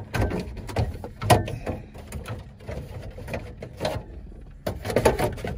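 Irregular knocks, clicks and rustling from handling and movement inside the vehicle's cab, with no steady rhythm.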